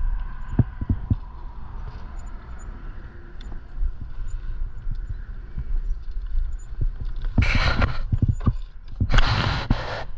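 Footsteps and scattered knocks over a low rumble, then two louder bouts of rustling and scraping near the end, as roadside litter is handled and sorted.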